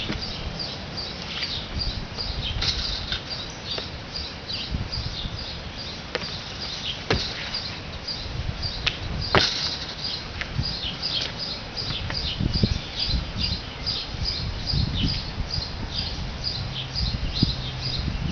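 Small birds chirping steadily in the background, a rapid series of short high chirps about three a second, over a low rumble. A couple of sharp knocks stand out, the loudest about nine seconds in.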